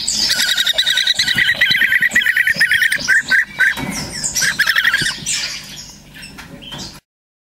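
European bee-eater nestlings giving their food-begging calls: rapid, trilling chirps, one long run and then a shorter one, fading out before the sound stops.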